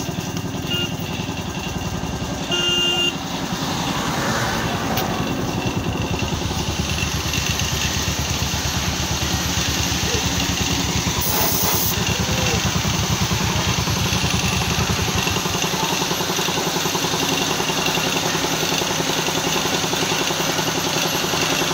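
Air compressor for spray painting running steadily with a fast, even pulsing and a steady hiss; the deepest part of the hum drops away about two-thirds of the way through.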